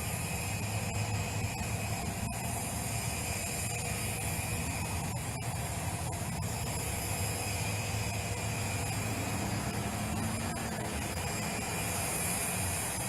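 Jet aircraft engines running steadily: a low rumble under a constant high whine and hiss.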